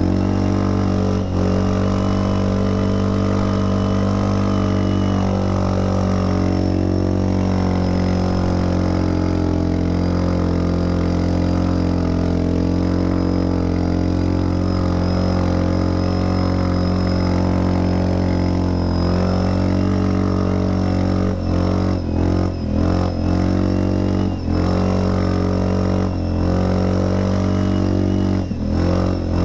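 Linhai 400S Dragonfly ATV engine running at a steady speed under load, its pitch wavering slightly, with a few short dips near the end.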